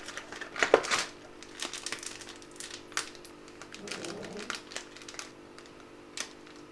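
Foil spice sachet crinkling and crackling as it is slid out of its cardboard box and torn open, a run of sharp clicks and rustles that is loudest about a second in.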